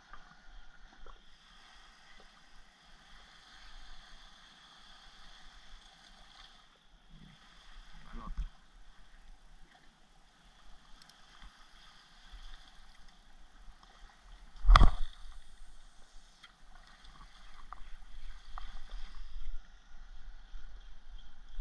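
Shallow water lapping and sloshing around a wader's legs, with a faint steady hum underneath. A single sharp knock about two-thirds of the way through is the loudest sound.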